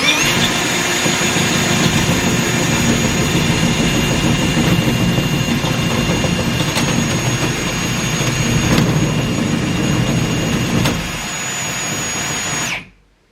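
A high-speed electric motor spins up with a rising whine, runs steadily for about thirteen seconds, and is switched off near the end.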